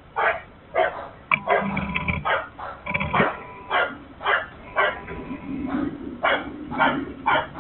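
A dog barking over and over, about two barks a second, heard through a security camera's narrow-sounding microphone. A brief low rumble with a steady tone sits under the barks a second or two in.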